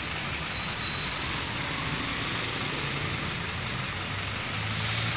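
Steady road-traffic noise with a low engine hum.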